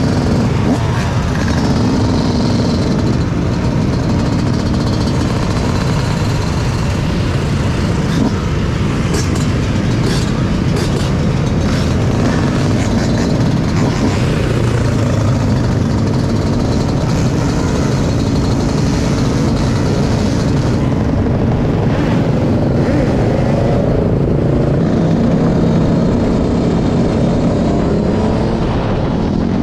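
Off-road vehicle engines running continuously, their pitch rising and falling at times as they rev.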